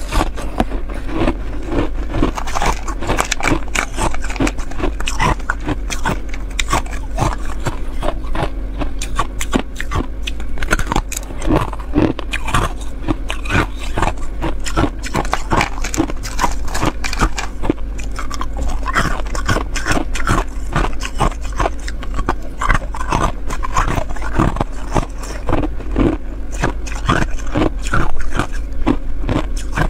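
Thin slivers of ice bitten and crunched between the teeth, a dense run of sharp crackling crunches, over a steady low hum.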